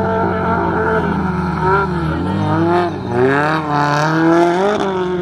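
Rally car engine revving hard on a loose dirt track. The revs dip sharply twice, a little after two seconds in and again near three seconds, then climb back strongly as the car slides past close by.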